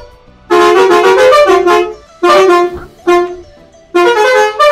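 Roots musical truck horn playing its third tone: a loud, brassy tune of stepped notes in four phrases, the first about a second and a half long, then two short ones, and a fourth starting near the end.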